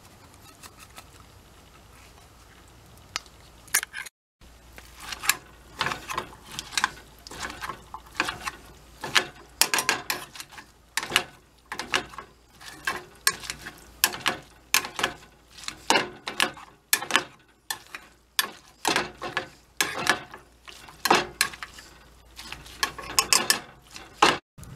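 Metal wire potato masher mashing boiled cauliflower in a saucepan, each stroke clanking and scraping against the pan. The strokes come about one or two a second, starting about four seconds in.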